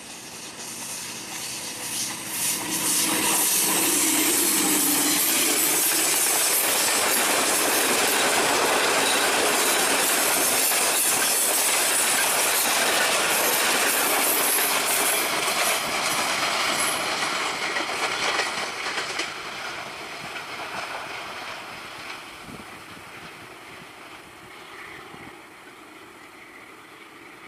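Passenger train led by a ZCU-20 diesel-electric locomotive passing close on a curve. The sound builds quickly in the first few seconds as the locomotive goes by. The coaches' wheels then clatter over the rail joints with a high squeal from the curve, and after about twenty seconds the sound fades as the train draws away.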